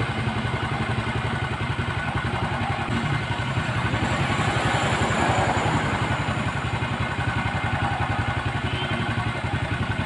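Motorcycle engine idling steadily, with an even, rapid low pulse.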